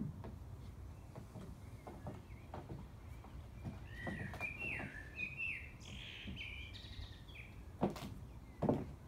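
Scattered taps and knocks from high-heeled shoes on wooden decking and a metal-framed patio chair being handled, with two sharper knocks near the end. A small bird chirps a quick run of gliding notes for a couple of seconds midway.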